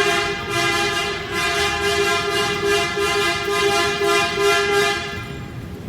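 Several coach horns honking together in one long sustained blare, pulsing about twice a second, and cutting off about five seconds in.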